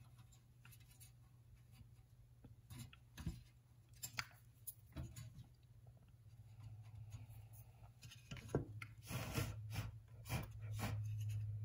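Scattered light clicks and taps of a C3 Corvette's metal instrument-cluster housing being handled and set down on a workbench, busier and louder near the end, over a low steady hum.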